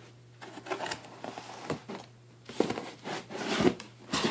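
Cardboard box and packaging being handled during a laptop unboxing: irregular rustling and light taps and scrapes, with a steady low electrical hum underneath.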